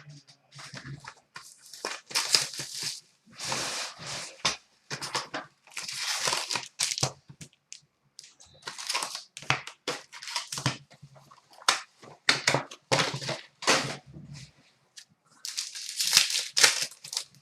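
Plastic and foil trading-card wrapping being torn open and crinkled, in a long series of short crackling rips with brief pauses between them.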